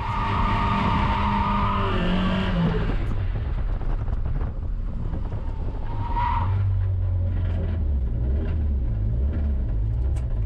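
Nissan 240SX heard from inside the cabin on a track: tires squealing as the car slides for the first three seconds, the engine note falling as it ends. A short tire squeal comes about six seconds in, then the engine runs steadily.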